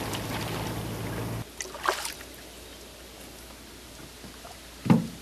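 Wind rushing over the microphone from a canoe on open water, which cuts off abruptly after about a second and a half to quiet lapping water. There is a brief splash about two seconds in and a short low knock near the end.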